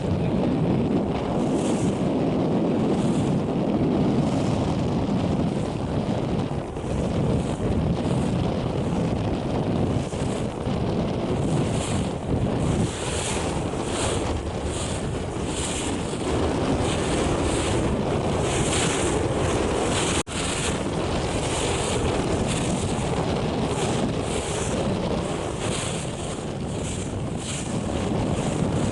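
Wind buffeting the microphone over the rush of water along the hull of a boat under way at sea, with spray splashing every second or so.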